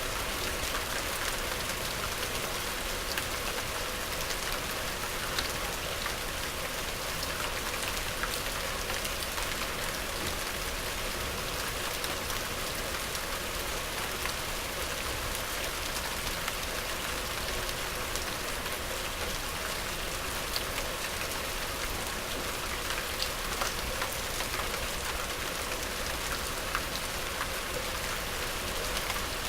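Steady medium rain: an even hiss of rainfall with many small drop ticks landing on a surface.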